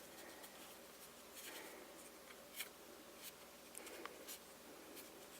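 Faint handling sounds: soft rubbing and a few light clicks as a Kinder Surprise egg's toy capsule and its small parts are handled.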